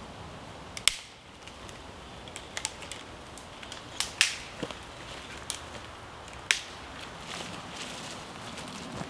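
Dry dead sticks snapping as they are broken by hand for firewood: a series of sharp cracks, the loudest about a second in and a cluster around four seconds in.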